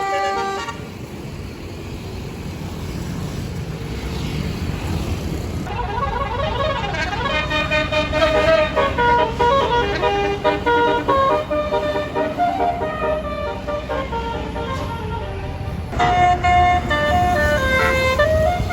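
Basuri multi-note bus horn ('telolet') playing a melody note by note over the rumble of an idling bus engine. The tune sounds briefly at the start, stops for a few seconds while only the engine is heard, then resumes about six seconds in and carries on.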